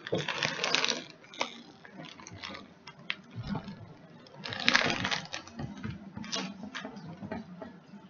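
Crinkly rustling and crunching from a bag of potato chips being handled and eaten, with two louder clusters: one at the start and one about five seconds in, and scattered small crackles between.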